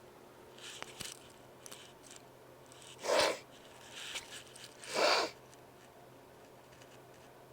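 A person sneezing twice, about two seconds apart, during an allergy sneezing fit brought on by a nose made over-sensitive by trying to clear out congestion.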